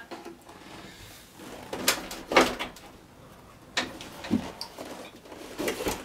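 Clips being taken off the suit's wooden frame and popped on elsewhere: about five short clicks and knocks, spread out.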